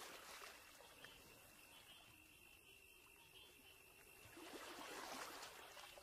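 Near silence: a faint hiss with a thin, steady high tone, swelling briefly a little before the end.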